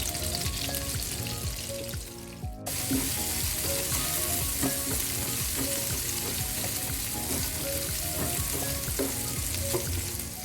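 Hot oil sizzling steadily in a pan as shallots, garlic and bay leaves are sautéed, with scattered clicks of stirring. The sizzle cuts out briefly about two and a half seconds in, then resumes.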